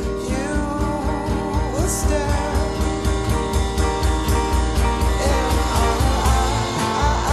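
Background song with singing over guitar and a steady rock beat with heavy bass.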